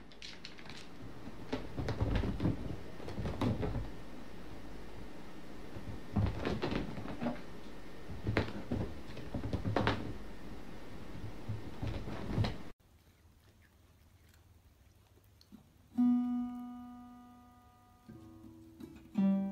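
Acoustic guitar strings plucked one at a time, probably by a cat's paw: three single notes near the end, each ringing out and fading. Before them comes a long, noisy stretch full of irregular knocks and taps, which cuts off suddenly about two-thirds of the way in.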